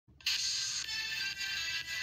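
Intro music that starts abruptly just after the opening, bright and treble-heavy with little bass, with a beat about twice a second.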